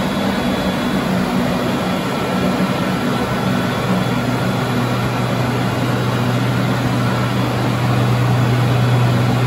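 Electric water pumps running steadily, a low motor hum under an even rushing noise; the hum grows stronger over the second half.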